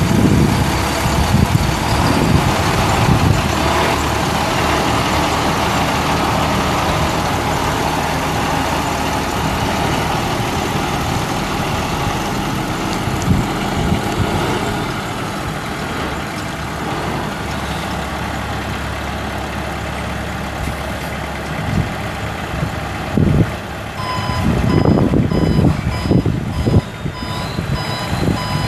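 A 2003 International 7500 dump truck's DT530 inline-six turbo diesel running as the truck drives past, a steady engine drone that gets somewhat quieter as it moves away. Near the end a backup alarm starts beeping at an even pace.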